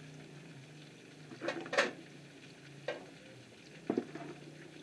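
A few short knocks and scrapes of metal cookware, the loudest a quick double clatter about one and a half seconds in, over a faint low hum.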